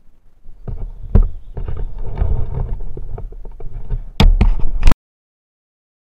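Handling noise from a helmet-mounted action camera being adjusted: rubbing and scraping right on the microphone, with sharp knocks about a second in and twice near the end. The sound cuts off abruptly before the end.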